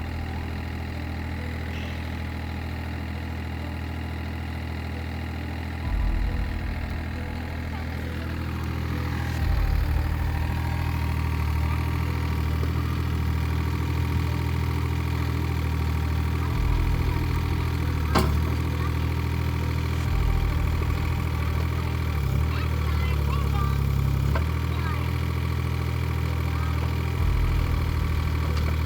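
Excavator's diesel engine running steadily, swelling briefly several times as the machine is put to work, with a single sharp click about 18 seconds in.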